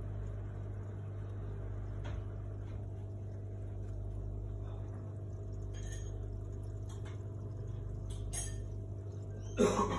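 Steady low electrical hum, typical of an aquarium air pump running a sponge filter, with a few faint clicks. Near the end comes a brief, louder whining sound with a wavering pitch.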